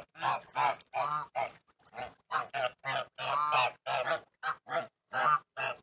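Domestic geese honking: a run of short, repeated calls, two or three a second, with a brief pause about two seconds in.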